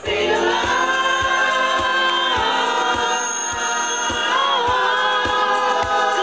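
A choir singing held, harmonised chords over a steady beat of about three low drum strikes a second.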